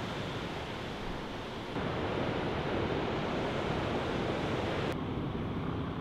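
Ocean surf and wind, a steady rushing noise. It changes abruptly about two seconds in, getting louder, and again near five seconds, getting duller.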